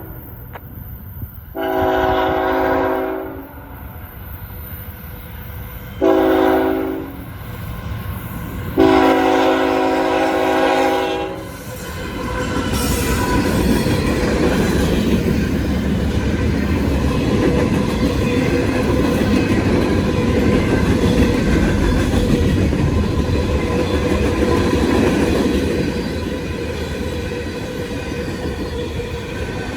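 Locomotive horn blowing the grade-crossing signal, long blasts with a short one between, then a fast train passing close by with a steady rumble and clatter of wheels on rail.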